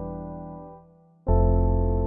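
Background music: soft electric piano chords with a deep bass, one chord fading away, a brief gap, then a new chord starting about a second and a quarter in.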